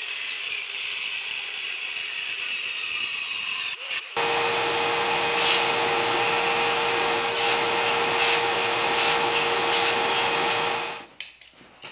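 Belt grinder running as a piece of steel is ground against the contact wheel to clean it to bare steel: a steady rasping grind over the motor's hum. It is quieter for the first four seconds, then louder after a brief break, and it stops about a second before the end.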